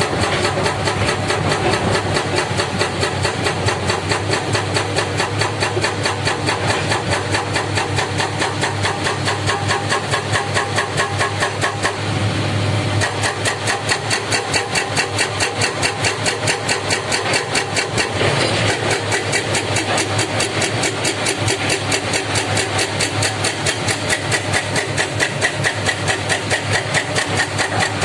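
Diesel engine of heavy earthmoving equipment running steadily with a fast, even pulsing beat. The tone shifts slightly about twelve seconds in.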